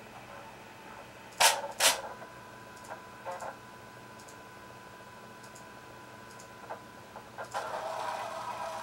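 Linear servo motor axis during sensorless hard-stop homing: two sharp clicks about a second and a half in and a few fainter ticks, then near the end a steady whine with several tones as the carriage starts travelling.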